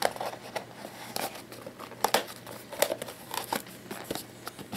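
Packaging being opened by hand: irregular crinkling and tearing with scattered small clicks.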